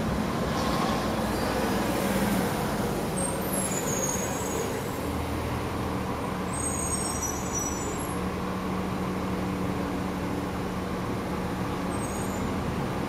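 Street traffic with a city bus's engine running close by. Its deep low rumble comes in about five seconds in and carries on under a steady hum, with a few short high squeaks in the middle.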